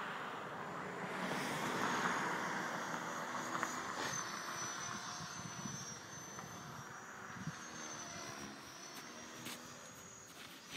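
Align T-Rex 500 electric RC helicopter flying: a high, slightly wavering whine from its motor and rotors over the hiss of its blades, loudest about two seconds in and growing fainter toward the end.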